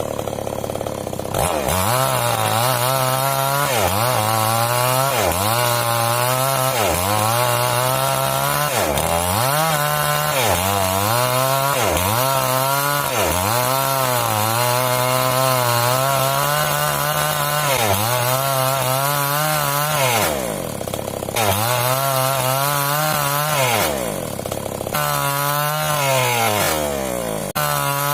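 Ecolite two-stroke chainsaw cutting wood, its engine note sagging under load and picking up again about every second or so. A few times near the end the engine drops briefly to a low note before revving back up.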